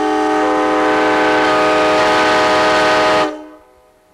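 Truck-mounted Nathan K5LA five-chime locomotive air horn blowing a loud, steady chord that cuts off sharply about three seconds in.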